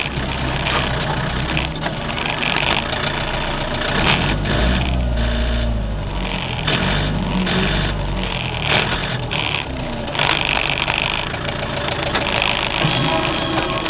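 Mitsubishi MT23 compact tractor's diesel engine running steadily while pulling a spike-tooth harrow across a field, with scattered clanks from the harrow frame and chains.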